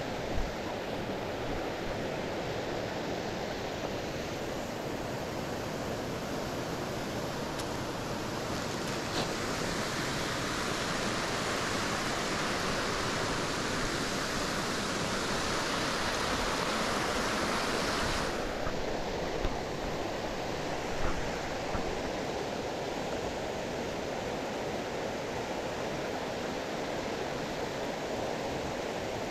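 Steady rushing of a mountain waterfall, San Antonio Falls, heard as an even hiss. The hiss turns brighter for about ten seconds in the middle, then drops back suddenly. A few short knocks sound over it.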